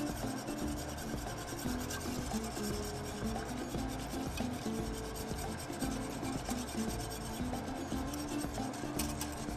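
Wire whisk scraping and rattling steadily against the inside of a stainless steel saucepan, whisking hot cream as powdered gelatin is poured in so it dissolves without lumps.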